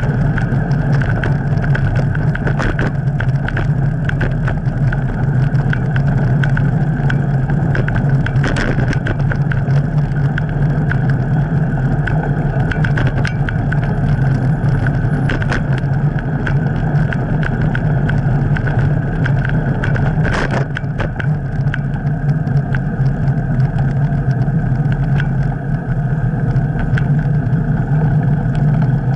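Steady rumble and rattle of a bicycle riding over a paved sidewalk, picked up by a camera mounted on the handlebars, with a few sharper knocks from bumps in the paving.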